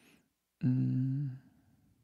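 A man's brief closed-mouth hum, an "mmm" held at one steady pitch for under a second.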